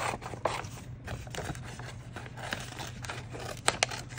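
Scissors snipping through a printed paper collage sheet, a run of irregular cuts with paper rustling, two sharper snips near the end.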